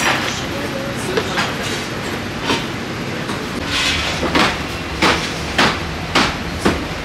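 Cardboard pizza boxes being folded by hand: a series of sharp papery snaps and slaps as the flaps are creased, coming about twice a second in the second half, over a steady low hum.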